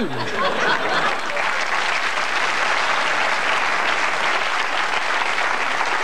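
Studio audience applauding steadily in response to a punchline.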